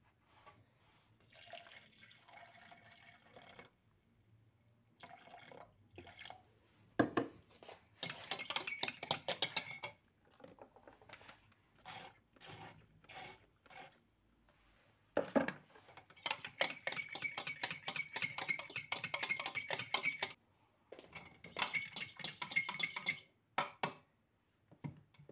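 A metal spoon stirring tomato paste into water in a plastic measuring jug, in several bouts of quick scraping and clinking against the jug.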